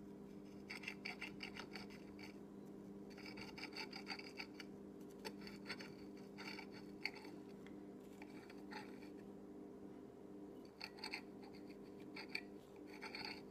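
Table knife cutting through a pancake and scraping on the plate beneath, in short scratchy bursts every second or two, over a steady low hum.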